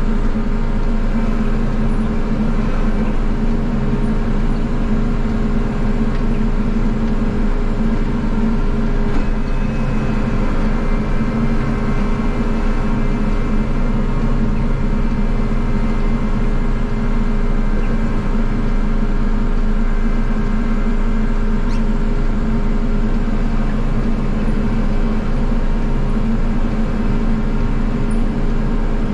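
Snowblower engine running steadily at constant speed while clearing the driveway; a loud, unchanging engine drone.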